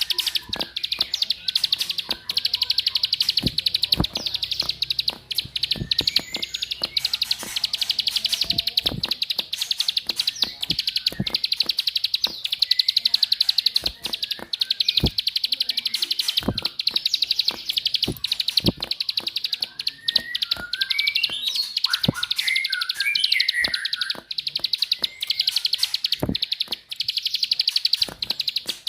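Ciblek (prinia) 'klik klik' call: a very fast, continuous high-pitched clicking, broken by short gaps every second or so. A few brief whistled chirps come about 20 to 24 seconds in. This is the clicking call kept as a lure to set cage ciblek singing in full song.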